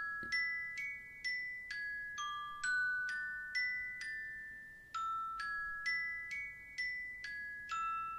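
An iPhone ringtone from iOS 7 playing: a bell-like, glockenspiel-style melody of single struck notes, about two a second, each ringing briefly. The short phrase repeats.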